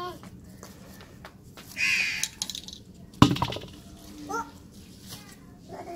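A crow caws once about two seconds in, and a single sharp knock comes about a second later, the loudest sound. Faint small chirps follow.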